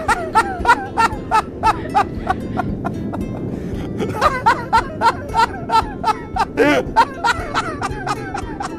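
People laughing in rapid ha-ha bursts, in two spells, over background music with a steady beat.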